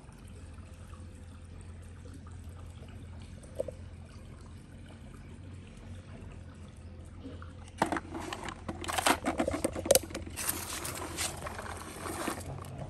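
Water splashing and trickling with irregular clattering, starting about eight seconds in after a quiet stretch of low steady hum.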